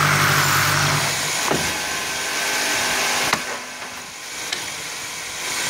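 Multi-spindle wood drilling machine for chair parts running, its motors humming steadily. About a second and a half in the pitch dips briefly, and a sharp click comes at about three seconds. The machine then runs quieter, and its hum rises again near the end.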